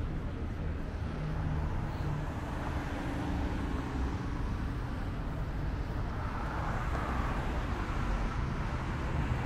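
Street traffic: a steady rumble of cars and engines passing, swelling a little about six seconds in.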